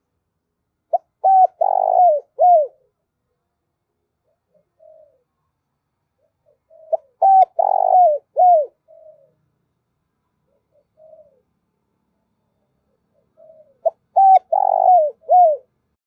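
Spotted dove calling: three cooing phrases of four or five notes each, about six seconds apart, with a few soft coos between them.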